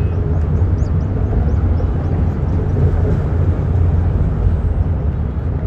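Steady low rumble of wind buffeting the microphone, with a few faint short high chirps in the first couple of seconds.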